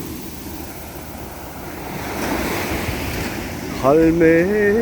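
Sea waves surging and washing up on the shore, the surf swelling louder through the middle. Near the end a person's voice starts a long, wavering sung note.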